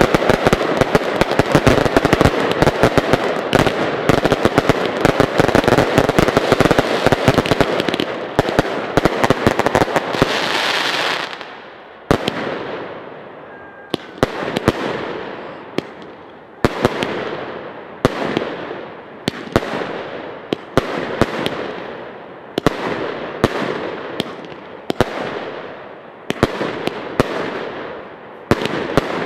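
Fireworks finale: a dense barrage of rapid bangs and crackling for the first ten seconds or so, then single aerial shells bursting a little over a second apart, each bang trailing off in a fading crackle.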